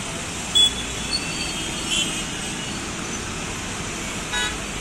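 Busy street traffic: a steady hum of engines with short horn beeps over it, the loudest about half a second in and another near the end.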